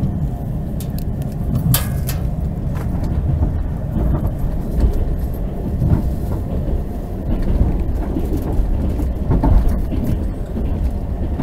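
Passenger train carriage running along the rails, a steady low rumble heard from inside the carriage, with a few sharp clicks, the strongest about two seconds in.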